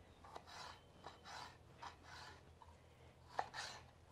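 Kitchen knife slicing jalapeño peppers into strips on a wooden cutting board: a series of faint cutting strokes with light knocks of the blade on the board, the sharpest about three and a half seconds in.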